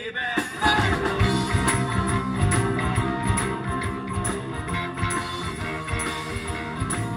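Live band playing with guitars and drums, the full band coming in strongly about half a second in and carrying on with a steady rhythm.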